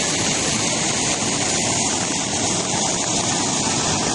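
Loud, steady rushing of storm water during a flash flood, a continuous even roar with no breaks.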